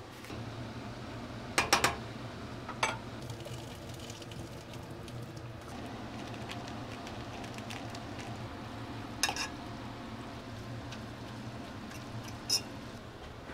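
Kitchen work with a utensil and cookware: a few sharp clinks of a utensil against a pot, a quick cluster about two seconds in, then single clinks spread out, over a steady low hiss and hum.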